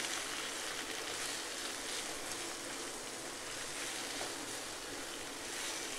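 Chopped onion, tomato and green peas sizzling steadily in hot oil in a non-stick kadhai as they are sautéed with a silicone spatula.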